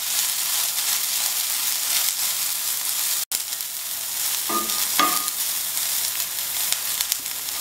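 Soaked soya chunks sizzling as they fry in hot oil in an iron pan, stirred with a steel spoon. There are two short ringing scrapes of the spoon against the pan about four and a half and five seconds in.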